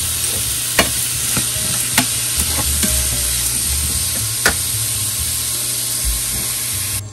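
Chopped onions sizzling steadily in a nonstick skillet as they sauté, with a plastic spoon stirring and scraping through them and a few sharp knocks of the spoon against the pan. The sizzle cuts off suddenly near the end.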